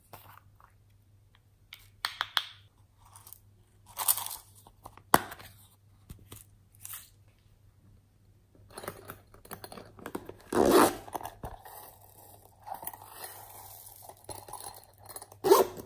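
Hands handling and squeezing soft plastic squishy toys: scattered taps, scrapes and crinkly rustles, loudest a little over halfway through and again just before the end. A faint steady hum sits underneath.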